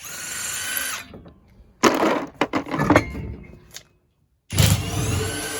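Metabo HPT 36V brushless cordless impact wrench running in three short bursts of about a second each, with sharp knocks in the middle burst.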